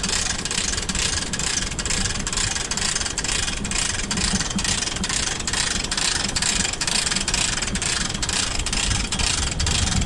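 Steady wind buffeting the camera microphone, a loud fluttering rumble with hiss over it.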